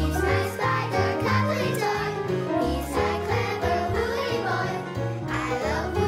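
Cheerful children's song with singing over an instrumental backing.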